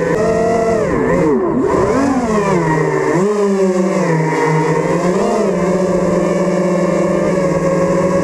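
FPV quadcopter's brushless motors and propellers whining, heard close from its onboard camera. The pitch rises and falls repeatedly with the throttle, then holds steady for the last few seconds.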